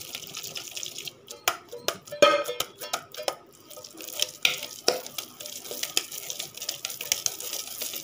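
A ball of cooked ragi kali (finger millet dough) being swirled round a wet stainless steel bowl to shape it, the dough swishing and sliding against the steel. Scattered knocks of the bowl come through, the loudest about two seconds in.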